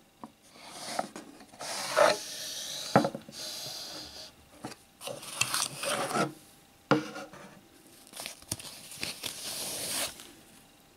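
Wooden box drawer being slid out with a couple of knocks, then a watch being lifted out and unwrapped from a soft cloth, in bursts of rustling and rubbing with a few sharp clicks.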